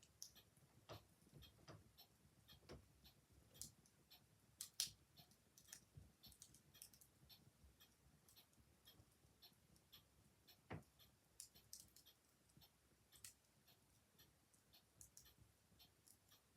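Faint crackling of an open fire, irregular small pops and snaps, the loudest about five seconds in and another near eleven seconds, with a clock ticking quietly.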